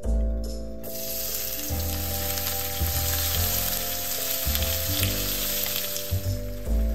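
Garlic and shrimp sizzling in hot olive oil in a frying pan. The sizzle starts suddenly about a second in and keeps going, with light background music underneath.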